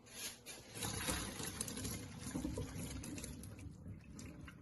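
Pasta cooking water being poured off the boiled pasta, splashing and gushing, tapering off toward the end.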